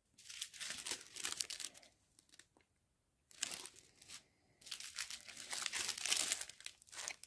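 Small plastic bags of diamond painting drills crinkling as they are handled and set down, in three spells with short pauses between.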